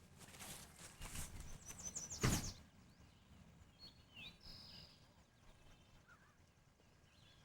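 A few short knocks and rustles, the loudest a thump a little over two seconds in, then small birds chirping and trilling faintly in the quiet outdoor air.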